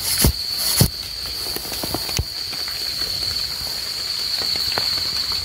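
A steady high-pitched insect drone, with a few sharp knocks and scrapes from hands and a tool digging through wet leaf litter and soil to free termite mushrooms.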